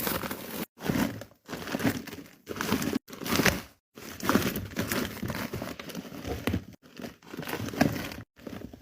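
Paper crinkling and rustling in irregular bursts as a paper squishy is handled and squeezed, broken by several sudden short gaps.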